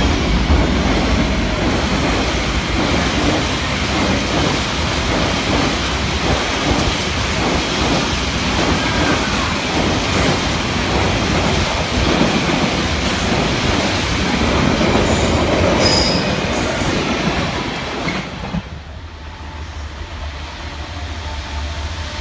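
A freight train of empty flat wagons rolls past close by, its wheels clattering over the rail joints steadily, with a few short wheel squeals shortly before it ends. About 18 seconds in, the sound drops to a quieter steady rumble as a Windhoff MPV track machine approaches.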